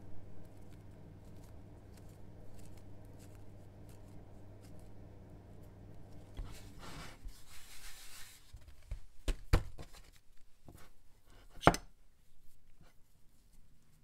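Small handling sounds of filling bread dough with bean paste: a low steady hum in the first half, a brief rustling scrape around seven seconds in, then a few sharp clicks of a metal palette knife against a ceramic dish, the loudest about twelve seconds in.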